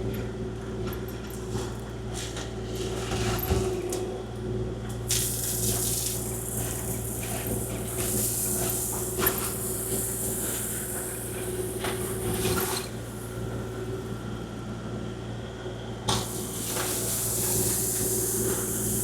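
Kubota KX040-4 mini excavator's diesel engine running steadily while the machine works, with scattered clicks and knocks. A rushing hiss comes in about five seconds in, eases off a little past the middle, and returns near the end.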